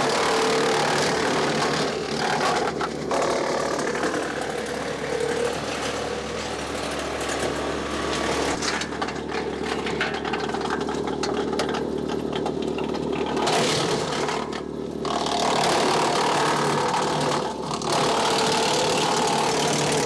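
Woodland Mills WC68 PTO wood chipper, driven at 540 RPM by a Kubota B2601 compact tractor's three-cylinder diesel, chewing through branches fed into its hopper. The engine holds a steady drone underneath while the chipping noise swells and eases several times as branches go through.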